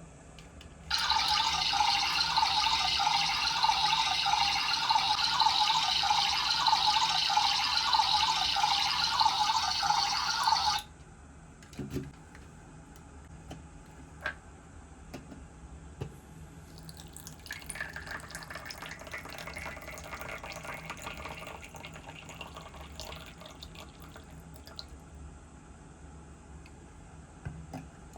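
Water running steadily for about ten seconds, starting and stopping abruptly. A few clicks follow, then a fainter, uneven stretch of running water.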